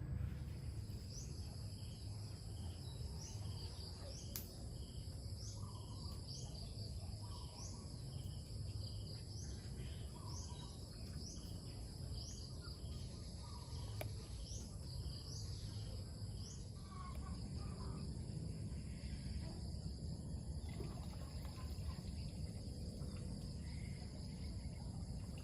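Insects shrilling steadily in several high pitches, with a quick repeated chirping call, about one and a half a second, that stops about two-thirds of the way through. A low rumble runs underneath.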